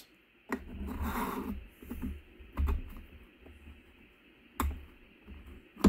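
Plastic gear parts of a TRULAP 8552 adjustable dumbbell's selector mechanism being handled and set into place, giving a few separate light clicks and knocks.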